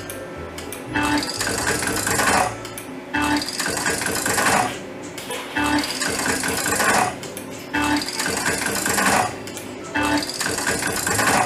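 Merkur Russian Queen slot machine's reel-spin sounds, one spin after another, each burst lasting about a second and a half with a short pause before the next, about five spins in all.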